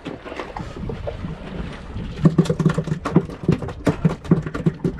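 A freshly caught fish flapping on the boat, its body slapping the deck in a fast, irregular run of hollow thuds that starts about two seconds in.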